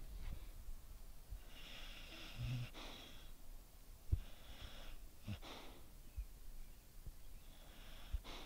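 A sleeping puppy snoring: a wheezy, hissing breath about every three seconds, three in all. A short soft knock about halfway through.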